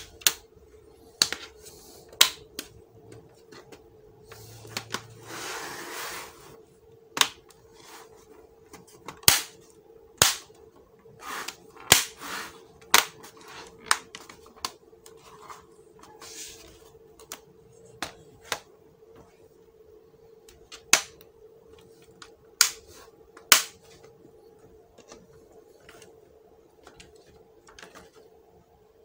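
Plastic bottom cover of an HP 240 G6 laptop being pressed shut, its clips snapping into place one after another: a series of sharp, irregular clicks, with a brief rustle about five seconds in. A faint steady hum runs underneath.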